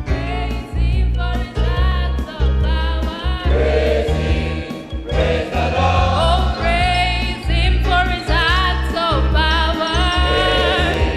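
Choir singing a gospel praise song with instrumental backing, the voices over a strong, steady bass line and a regular beat.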